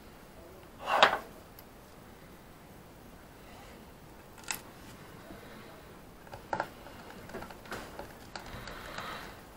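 Small clicks and light knocks from handling tools and parts of an opened external hard drive. There is one louder short rustling knock about a second in, a single sharp click at about the middle, and a quick run of clicks and rustles near the end.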